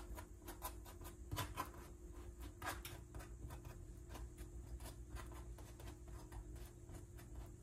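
Faint, irregular light ticks and scrapes of a knife spreading butter over bagels in a pan, over a steady low hum.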